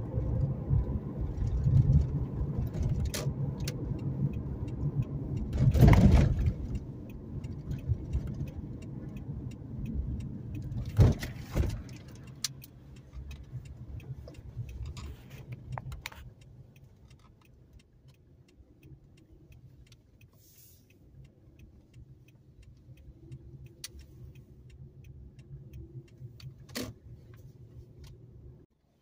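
Car road and engine noise heard from inside the cabin: a steady low rumble with a brief loud burst about six seconds in. Around the middle it drops to a faint hum as the car slows down.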